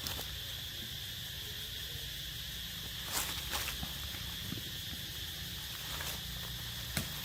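Steady high-pitched drone of insects, with a few soft clicks and taps about three seconds in and again near the end.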